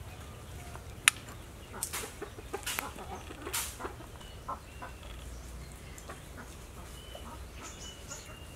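A metal spoon clinks and scrapes against a ceramic bowl several times in the first few seconds while food is spooned in. After that come faint, short bird chirps.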